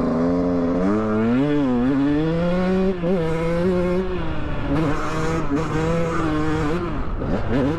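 Off-road motorcycle engines revving, the pitch climbing and falling with the throttle, with more than one engine heard at once.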